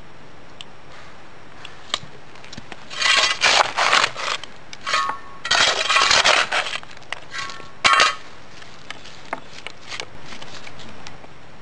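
Steel shovel blade scraping and clinking through stony soil in several short bursts, the loudest near the middle, some with a faint metallic ring.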